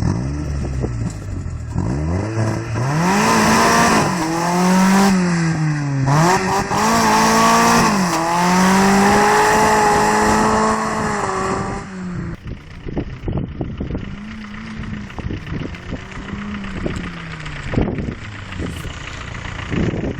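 Volkswagen Corrado's 1.8 16v four-cylinder engine accelerating hard, its revs climbing and dropping back several times through gear changes. After about twelve seconds it eases off and runs more quietly at lower revs.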